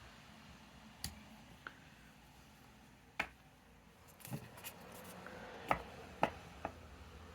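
Scattered light taps and clicks, about eight in all, from scrapbooking materials and tools being handled and set down on a work surface.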